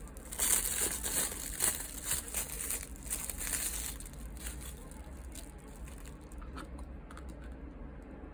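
Crinkly rustling of handled packaging, such as a plastic bag, loudest and busiest in the first few seconds, then thinning to a few light rustles and clicks.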